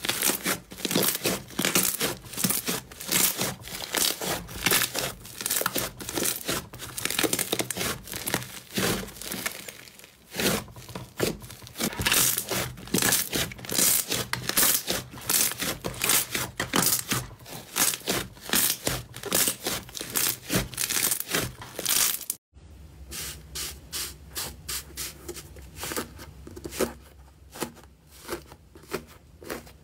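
Hands squeezing and kneading a thick purple slime, giving a dense, fast run of crackling pops and squishes. About two-thirds of the way through it cuts to fainter, sparser crackling from fingers pressing into a layered rainbow slime in a plastic tub, over a low steady hum.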